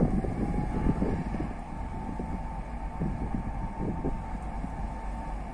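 Diesel locomotive engine revving up, with a steady whine that rises in pitch over the first second and then holds, over a rough low rumble.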